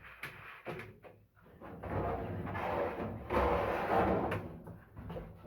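Dryer drum being worked into place in the cabinet, sheet metal against sheet metal: a few short knocks, then a longer scraping rumble about two seconds in.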